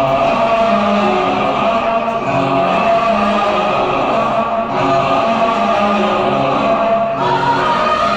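Instrumental interlude of a Hindi film song's backing track: held chords over a repeating bass line, with no lyrics sung.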